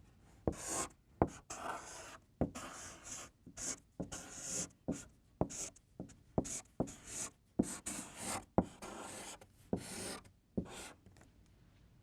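Writing on a board: a run of short scratchy strokes, many starting with a small tap as the tip meets the board, as a three-word phrase is written out.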